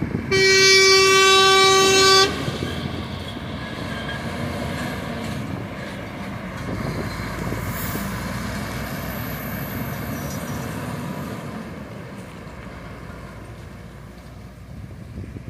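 A Mercedes-Benz sugarcane-hauling truck sounds its horn in one steady blast of about two seconds. It then drives past towing its loaded cane trailers, its diesel engine and trailers running steadily and fading as it moves away.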